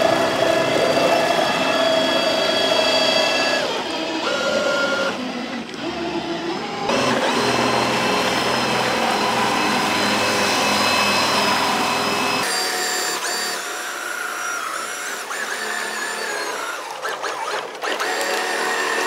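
Drill motor driving a homemade jet pump, running with a steady high whine, its pitch changing abruptly a few times, with water spraying from the jet nozzle.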